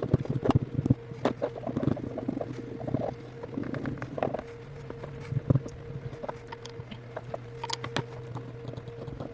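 Irregular small scratches, rubs and light clicks of a tool working at glue residue inside an iPhone 8's housing, cleaning it off with alcohol, busiest in the first couple of seconds. A faint steady hum runs underneath.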